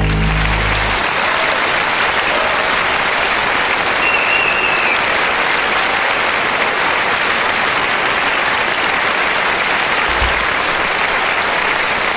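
A large theatre audience applauding, a dense, steady clapping. The last low note of the orchestra dies away in the first second.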